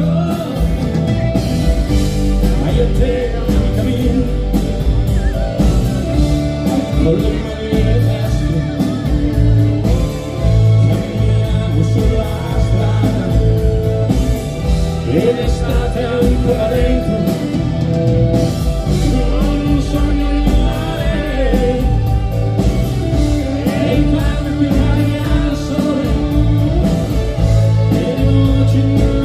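Live rock band playing: a man singing lead over electric guitar, bass guitar, keyboards and drums, heard through the concert PA.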